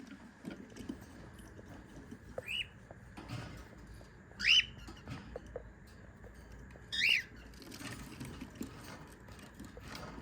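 A cockatiel calling three times, each a short call that rises and falls in pitch, a couple of seconds apart, with light scratching and tapping between the calls.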